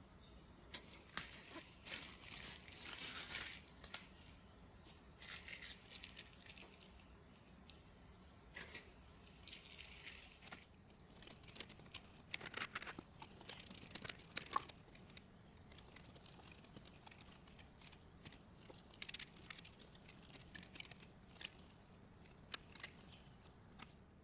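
Crinkling and rustling of packaging in irregular bursts, with scattered light clicks, as computer parts are handled.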